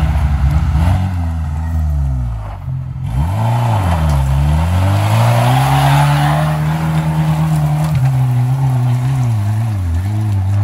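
1988 Suzuki Vitara's four-cylinder engine revving hard off-road: the revs drop about three seconds in, climb again and hold high, then rise and fall in short surges near the end. A rushing noise of tyres and dirt runs under the engine in the middle.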